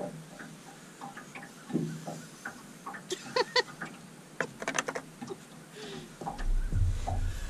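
A small dog gives a few short, high whimpers, mostly about three and five seconds in. A low rumble comes in near the end.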